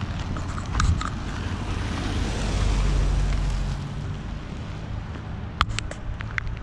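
Wind buffeting the microphone outdoors, a steady low rumble, with a few short sharp clicks near the end.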